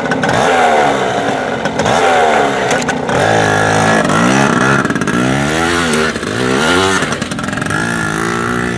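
Small Yamaha dirt bike engine revved hard again and again, its pitch rising and falling, as the rear wheel spins in the dirt in a burnout.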